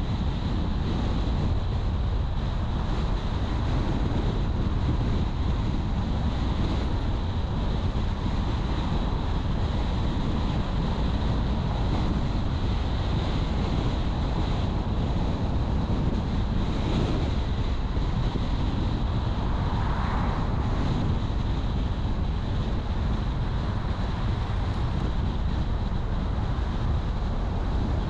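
A car driving at steady speed: a constant rush of tyre and wind noise, heaviest in the low end.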